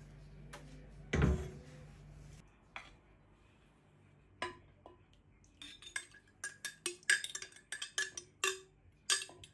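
A dull knock about a second in over a low hum, then a metal spoon clinking repeatedly against a glass jar and a clay pot as whole pickled limes are ladled into the jar, the clinks coming faster near the end.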